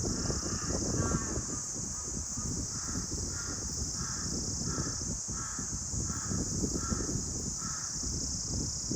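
A bird calling in a steady series of short, evenly spaced calls, about two a second, over the rush of wind in the trees and a constant high insect drone.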